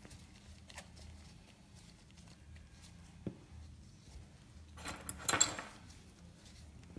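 Faint clicks of small objects being handled, with a brief rustling clatter about five seconds in, the loudest sound.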